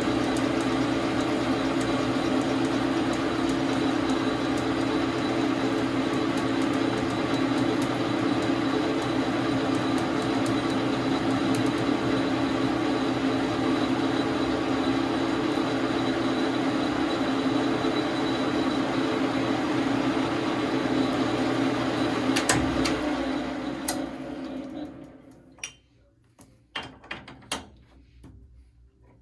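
A Dar Sin 12 x 37 manual lathe running steadily with a constant hum. About 22 seconds in there is a click, and the machine winds down to a stop over a few seconds. A few sharp clicks follow near the end.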